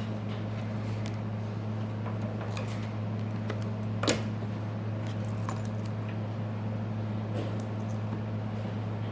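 Small clicks and taps of tools and phone parts being handled during a smartphone repair, with one sharper click about four seconds in, over a steady low hum.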